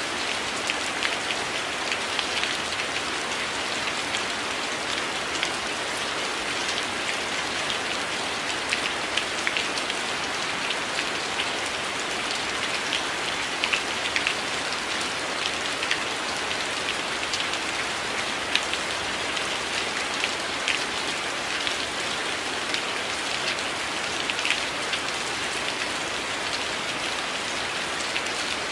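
Steady rain falling on window glass: an even hiss of rain with many small, sharp drop ticks scattered throughout.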